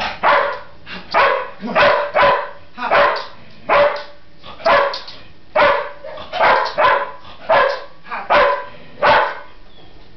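Australian Cattle Dog (blue heeler) barking over and over in a steady series, about one loud bark every three quarters of a second.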